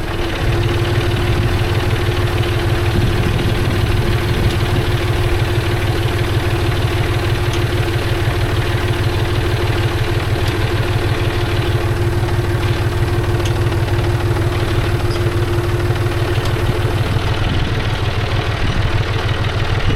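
Farm tractor engine running steadily under light work, with a steady whine over the engine that stops a few seconds before the end.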